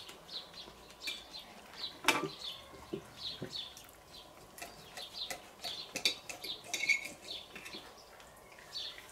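Small songbirds chirping, a steady string of short high calls repeating throughout, with one sharp click about two seconds in.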